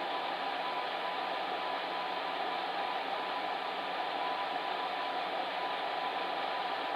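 Electric fan heater running: a steady whooshing rush of blown air with a faint steady hum underneath.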